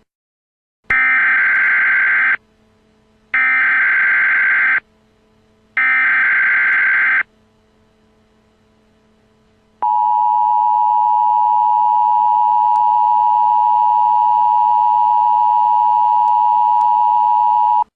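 Emergency Alert System header: three short bursts of SAME digital data, each about a second and a half long and about a second apart. Then the steady two-tone EAS attention signal sounds for about eight seconds and cuts off abruptly near the end.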